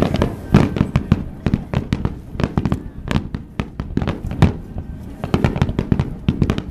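Fireworks display: a rapid, unbroken run of bangs and crackles, several a second, some much louder than others.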